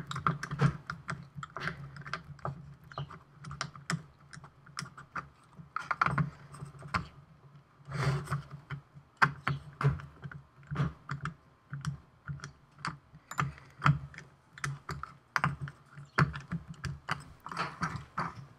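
Irregular small clicks and light knocks of a screwdriver and a wooden robot chassis being worked and handled on a hard countertop, as the screws of the plastic ball-caster base are finished and the chassis is turned over and set down.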